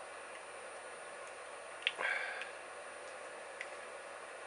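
Quiet desoldering of a MOSFET from an inverter circuit board: a steady faint hiss with a light click about two seconds in, followed by a brief rustle, and another small tick near the end, as pliers rock the part back and forth under a soldering iron.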